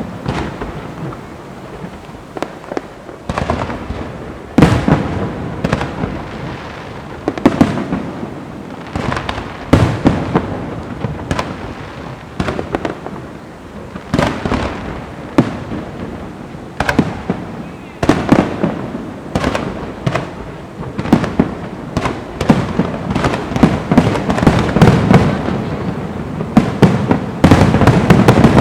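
Fireworks going off: a continual run of sharp bangs and deeper booming thuds, several a second, each trailing a rumbling echo, growing denser and louder near the end.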